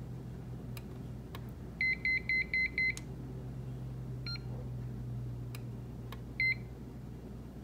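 Electronic ESR capacitor tester beeping as its probes test an electrolytic capacitor on a circuit board. There is a quick run of five short high beeps about two seconds in and single beeps later, over faint probe clicks and a steady low hum.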